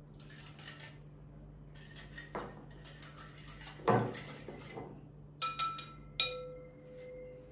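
Spiral coil whisk stirring a thin milk-and-yeast liquid in a glass bowl: rhythmic swishing strokes, then a knock about four seconds in. Near the end the metal whisk clinks a few times against the glass, leaving short ringing tones.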